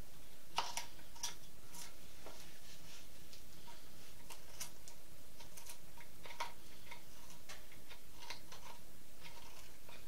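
Small hand-tool cuts shaving the pine bill of a duck decoy: a string of short, crisp snicks at an uneven pace, a few each second.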